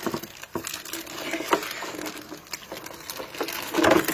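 Plastic ice bag crinkling as a block of ice is worked out of it, with scattered knocks and a louder bump near the end.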